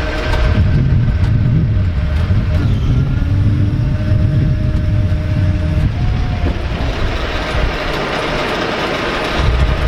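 A vehicle engine running with a low rumble and a steady whine over it; the whine stops about six seconds in, and near the end the rumble fades for a couple of seconds, leaving a hiss.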